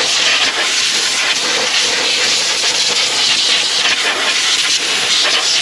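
Compressed-air blow gun with a long nozzle blowing dirt and sand out of an engine bay: a steady, loud hiss of air.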